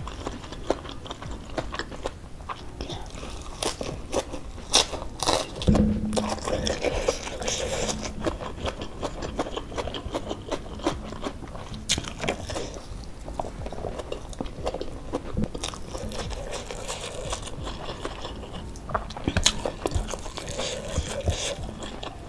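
Eating sounds: crisp crunching bites, with fresh lettuce leaf among the food, and wet chewing with scattered small clicks. A dull bump about six seconds in.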